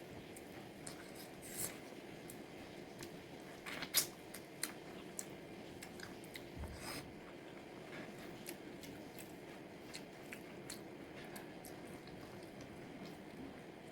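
Close-miked chewing and biting of pepper chicken, with scattered small wet mouth clicks and a sharper click about four seconds in.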